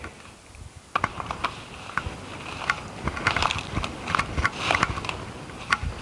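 Irregular light clicks and rustling, starting about a second in: something being handled close to the microphone.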